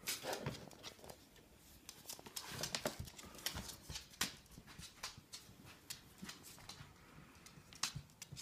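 Miniature dachshund puppies' claws and paws clicking and pattering on a wooden floor as they scamper about playing, a quick irregular run of taps that is busiest in the middle.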